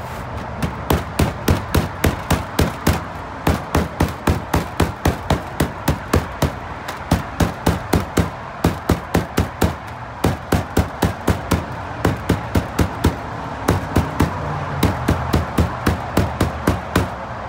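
Small sledgehammer striking a rain-gutter leaf-guard mesh lying flat on a workbench, hammering it flat. The blows come quickly, about three a second, in runs with short pauses between them.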